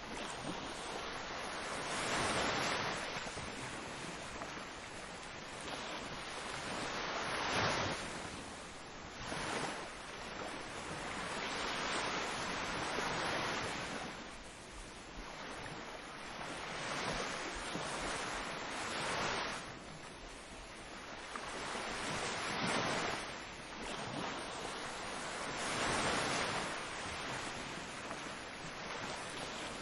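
Ocean surf: waves breaking and washing in one after another, the rush swelling and fading every few seconds.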